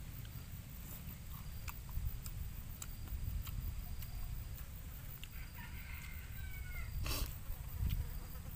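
Outdoor ambience with a steady low rumble and scattered small clicks, a brief falling animal call about six seconds in, and a short sharp knock about a second later.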